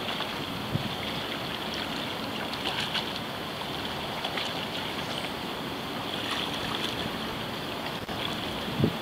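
Steady outdoor water and wind noise: small waves lapping, with wind on the microphone. A brief low bump near the end.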